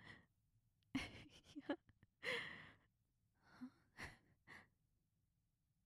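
A woman's soft, close-miked sighs and breaths: a few short breathy sounds about a second in, a longer sigh at about two seconds, and a few more short breaths near four seconds.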